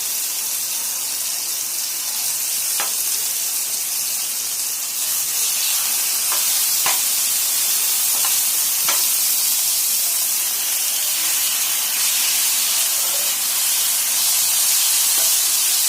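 Small pieces of marinated boneless chicken sizzling steadily in oil on a hot iron dosa griddle, with a few light clicks as they are stirred.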